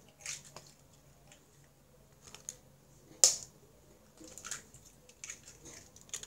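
Eggs being cracked into a bowl: one sharp knock of an egg struck on the bowl about three seconds in, among small clicks and crackles of eggshell being broken and pulled apart.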